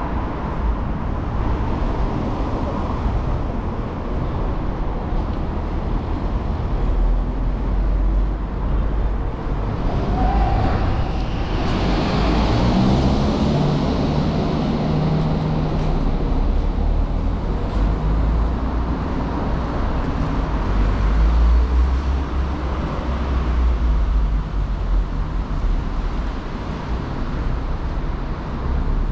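City street traffic: a steady mix of cars and engines going by. A louder vehicle passes about twelve seconds in, its engine note rising and falling as it goes.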